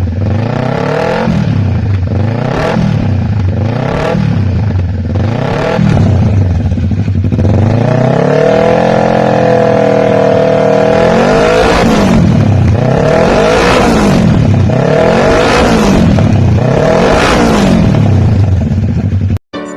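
Kawasaki Ninja 650's parallel-twin engine being revved in short repeated blips, about one every second and a half. It is held at higher revs for a few seconds in the middle, then blipped again, and cuts off suddenly near the end.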